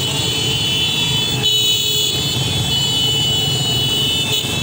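Many small motorcycle engines running together in a moving convoy. A steady high-pitched tone is held over them throughout.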